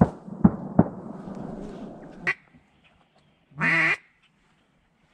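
A few sharp knocks and a faint rustling hiss, then about three and a half seconds in a single loud nasal duck quack.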